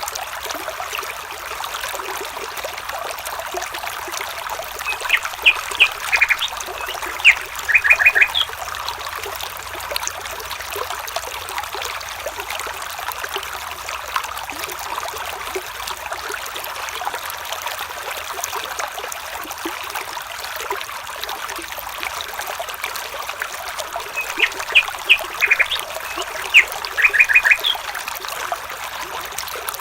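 A stream flowing steadily, with a bird's short phrase of quick high chirps heard twice, the same phrase each time, about twenty seconds apart.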